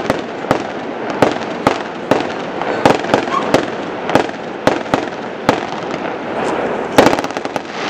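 Aerial fireworks shells bursting one after another, sharp bangs about two a second over a steady hiss, with a quick run of cracks near the end.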